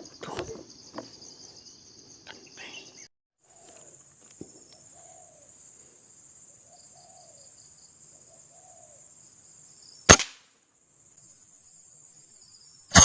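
Two sharp shots about three seconds apart from a PCP air rifle over the steady high drone of cicadas or crickets; the second has a short ringing tail.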